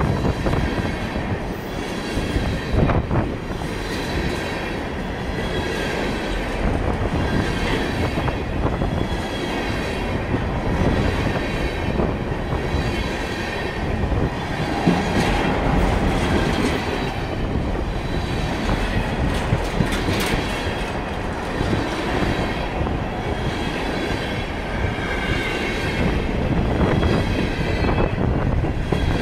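Vermont Railway freight train's tank cars and covered hopper cars rolling past close by: a steady rumble of steel wheels on rail, with occasional clacks and a faint high-pitched squeal from the wheels running through it.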